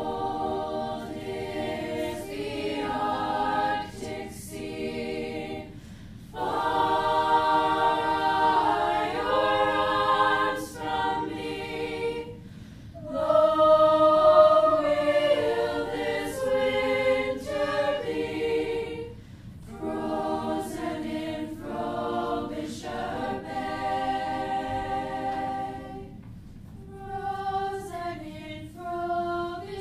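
A choir singing, in phrases of held notes with short breaks between phrases.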